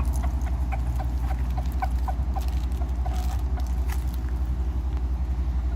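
Idling vehicle engine: a steady, evenly pulsing low rumble, with light irregular ticks scattered over it.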